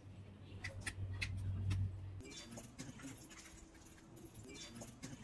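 Scattered small plastic clicks and taps from handling a squeeze bottle and its cap, over a steady low hum. About two seconds in the hum stops suddenly, and lighter scattered clicks go on over a faint steady tone.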